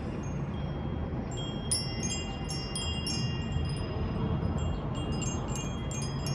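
Wind chimes ringing irregularly, several clear high tones struck and overlapping as they ring on, over a steady low rumble.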